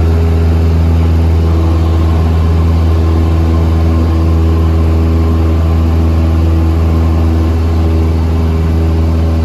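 Cessna 172's piston engine and propeller droning steadily in flight, heard inside the cabin.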